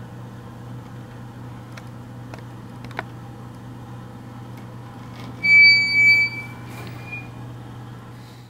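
Restroom room tone with a steady low hum and a few light clicks. A little past the middle a loud, high-pitched squeal sounds for about a second, swelling twice, then a short rising squeak follows.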